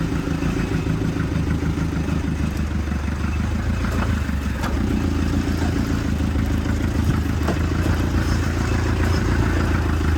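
Vehicle engine running steadily while driving off-road, with a couple of knocks and rattles over rough ground.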